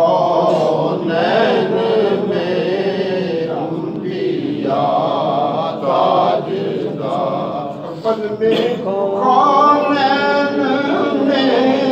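A group of men's voices chanting together in a melodic devotional chant.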